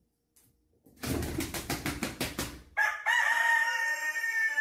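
A rooster flaps its wings in a quick run of beats, about five a second, then almost three seconds in starts one long crow held at a steady pitch.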